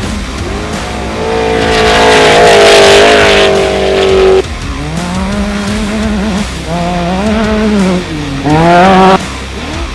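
Off-road race vehicle engine revving hard, its pitch rising and falling through the gears. A loud, steadily climbing stretch in the first half cuts off abruptly, followed by lower revs and a short, loud rising burst near the end that also stops suddenly.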